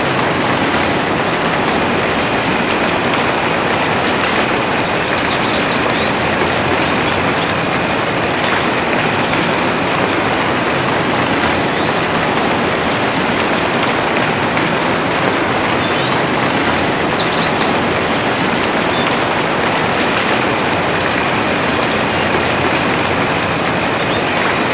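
Steady hiss of soft rain falling in a forest, under a constant high-pitched drone. Two brief falling bird calls come through, about four and a half seconds in and again about sixteen seconds in.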